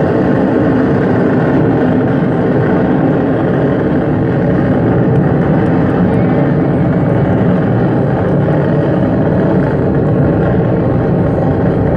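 Rumble of a Delta IV Heavy rocket's three liquid-fuelled main engines heard from miles away during its climb after liftoff: a loud, steady, low rumble that never lets up.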